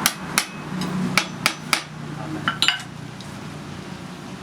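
A hammer striking steel: about eight sharp, ringing blows, irregularly spaced and some in quick pairs, stopping about three seconds in. A low steady hum runs underneath.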